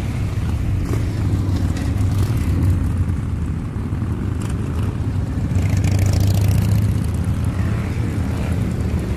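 A group of chopper-style motorcycles cruising along a highway, their engines running with a steady low sound that swells a little about six seconds in.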